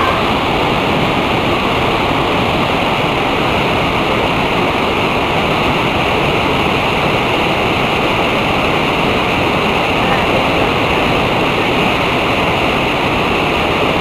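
Dunhinda Falls, a tall waterfall, pouring down a cliff into a gorge: a loud, steady rush of falling water that never lets up.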